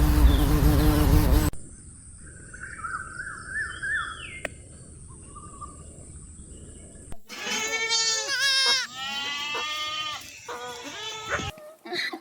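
Buzzing insect that cuts off sharply about a second and a half in, followed by faint bird chirps and trills. From about seven seconds in, a goat bleats loudly in several long, wavering calls.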